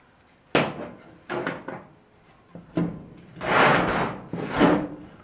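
Cowl vent handle and pivot parts from a 1948 Ford F1 being handled and fitted together on the bench. A sharp knock comes about half a second in, then a few lighter knocks, and two longer scraping sounds near the end.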